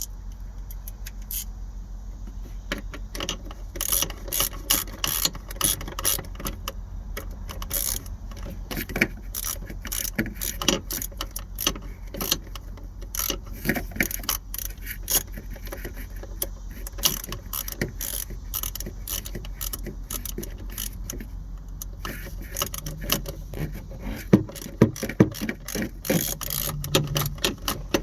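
Hand ratchet wrench clicking in repeated short strokes while tightening a bolt, over a steady low hum.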